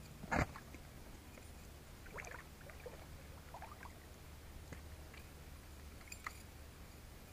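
Gentle water sloshing and gurgling around legs wading in shallow lake water while a spinning rod is cast and reeled in. A single loud sharp sound comes about half a second in, with a few faint short splashes later.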